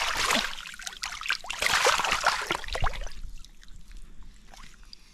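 Water splashing and sloshing as hands and a small cod churn in shallow river water while the fish is scooped back up for release. The splashing is loudest over the first three seconds, then settles to a light trickle.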